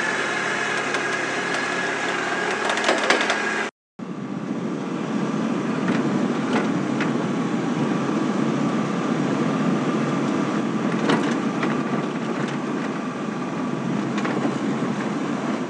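Off-road utility vehicle driving over a rough dirt track: steady engine noise with body rattle and scattered sharp knocks. The sound breaks off briefly about four seconds in; before the break there is a steady running-motor noise with a thin high whine.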